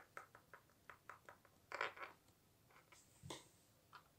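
Faint light taps and scrapes of a small plastic toy figure being moved by hand on a wooden tabletop: a quick run of little clicks in the first second and a half, then two louder scuffs, near two seconds and just past three.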